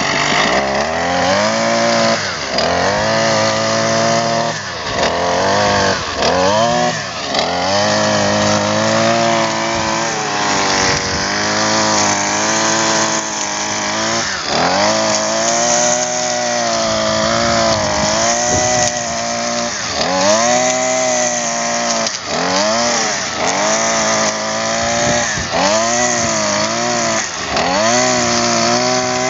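Husqvarna 128R strimmer's small two-stroke engine running as its nylon-line trimmer head cuts grass, the engine note repeatedly dipping and swinging back up every second or two.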